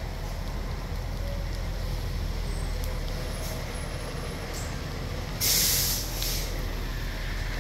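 Steady low engine rumble with a loud hiss of escaping air about five and a half seconds in, then a shorter second hiss.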